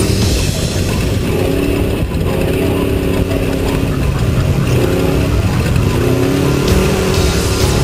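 Off-road race truck's engine running hard under load, its pitch rising and falling again and again as it revs and shifts, with heavy low rumble, heard from an onboard camera.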